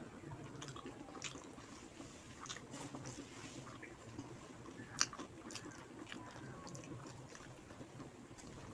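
A person chewing a mouthful of rice and fish curry: soft, wet chewing with scattered small clicks, and one sharper click about five seconds in.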